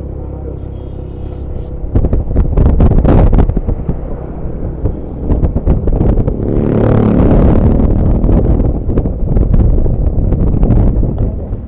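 Diesel engine of an ALS intercity bus running through a loud aftermarket exhaust, a rough snoring note. A steady low hum turns loud and harsh about two seconds in and swells to its loudest in the middle.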